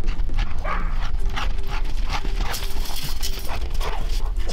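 Dogs running through snow, their paws striking in a quick galloping rhythm, with a few short barks, over a steady low rumble.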